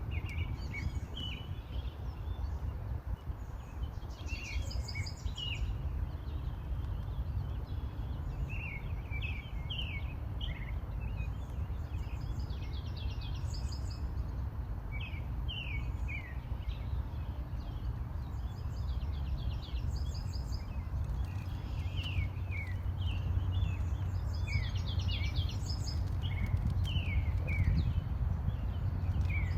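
Songbirds chirping and calling in short bursts of quick, repeated notes over a steady low rumble.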